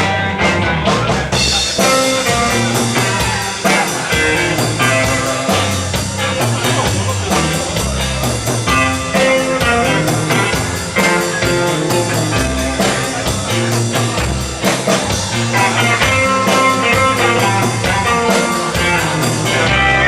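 A rock band playing an instrumental passage of sixties-style music, with guitar, bass and drum kit; steady cymbal strokes come in about a second and a half in.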